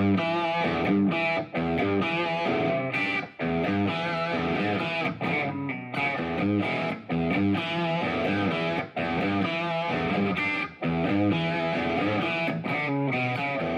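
Solid-body electric guitar strummed through a small amplifier, playing chords in short phrases with brief gaps between them.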